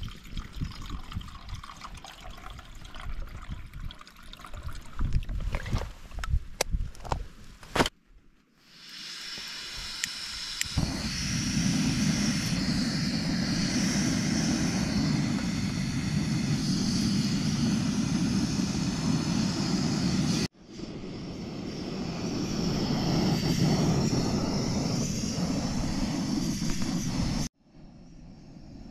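Water gurgling and trickling as a soft filter bottle is dipped and filled in a lake, with a couple of sharp clicks about six to eight seconds in. Then a steady, loud rushing noise with no pitch takes over for most of the rest, cut off abruptly twice.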